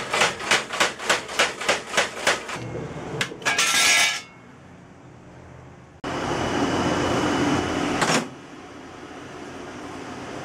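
Homemade wheel-driven power hammer pounding red-hot leaf-spring steel, about three to four blows a second, stopping about two and a half seconds in. A brief burst of metallic clatter follows, and later a steady mechanical noise lasting about two seconds.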